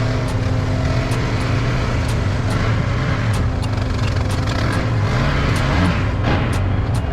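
ATV engine running steadily, a low hum with a steady higher tone over it, with scattered sharp clicks and rattles.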